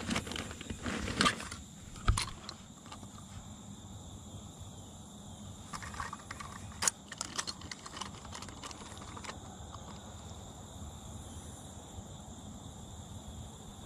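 Scattered clicks, knocks and light rattles of fishing gear being handled in a boat as a bass is clipped onto a handheld digital fish scale. The clicks come mostly in the first two seconds and again around six to seven seconds in, then give way to faint steady background.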